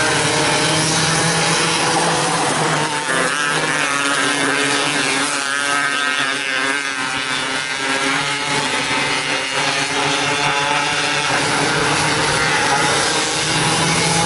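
Several 270cc micro sprint cars racing round a dirt oval, their engines running together, the pitches rising and falling as the cars go through the turns and down the straights. Near the end one engine climbs in pitch as a car accelerates past close by.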